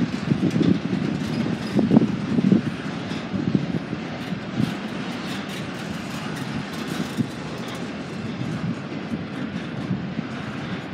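Freight train rolling past: a steady rumble of wheels on rail with irregular clanks. It is loudest in the first few seconds.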